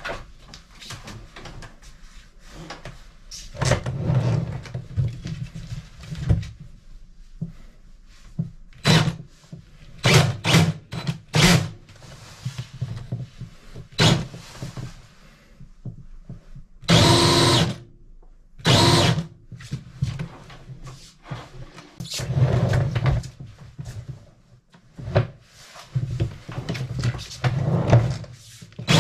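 Cordless drill driving a RIDGID K9-204 FlexShaft drain-cleaning machine in short start-stop bursts as its cable is worked through a blocked drain, with scattered knocks and rattles. About two-thirds of the way through, the drill twice runs for about a second with a steady whine.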